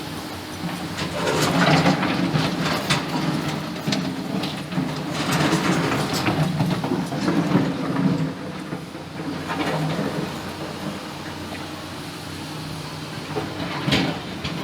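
Hydraulic excavator's diesel engine running under load, with repeated clattering and scraping as the bucket digs into river stones; a sharp clank near the end.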